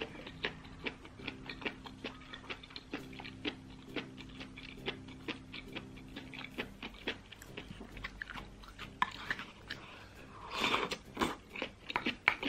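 Close-miked chewing of a mouthful of rice and spicy fatty beef: soft wet mouth and teeth clicks, about two to three a second. A louder, longer noise comes about ten seconds in.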